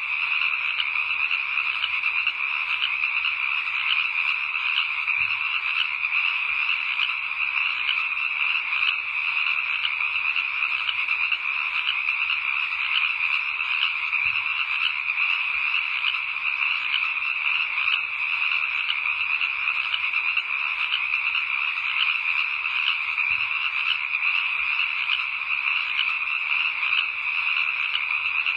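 A dense, steady chorus of frogs calling, with no let-up.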